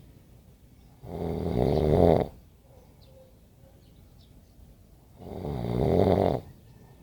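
Snoring: two long snores about four seconds apart, each swelling for about a second and then stopping abruptly.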